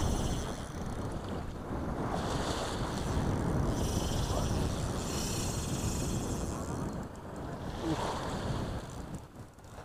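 Wind buffeting the microphone over small waves washing onto a sandy shore, with patches of higher hiss as the water surges.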